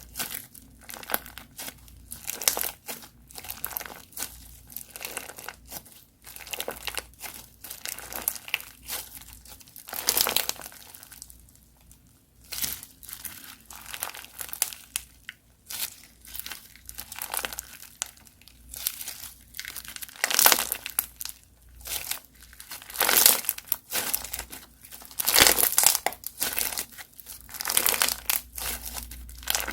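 Crunchy slime being squeezed and pressed by hand, giving dense, irregular crackling and popping in quick clusters with short pauses.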